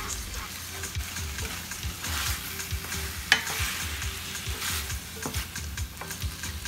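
Conch pieces frying and sizzling in a stainless steel skillet while being stirred with a spoon, with small scraping clicks against the pan and one sharper knock about halfway through.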